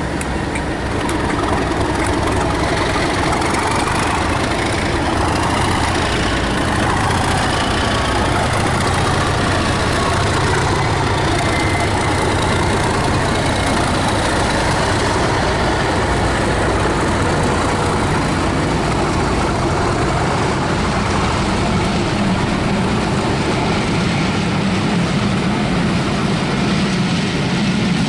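Two Class 37 diesel locomotives with English Electric V12 engines pulling a passenger train away from the platform, their engines running steadily under power as they pass. About halfway through the second locomotive goes by, and near the end the coaches roll past.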